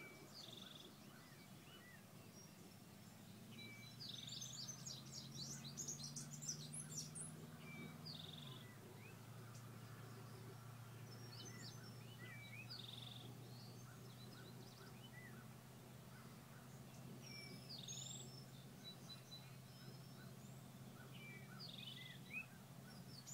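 Faint songbirds singing, repeating short high phrases every few seconds, over a steady low hum that drops in pitch about eight seconds in.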